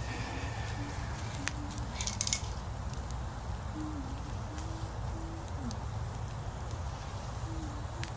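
Wood fire burning in an outdoor fire pit: a steady low rumble with a few sharp crackles and pops, the loudest cluster about two seconds in. A faint series of short low notes at changing pitch runs under it.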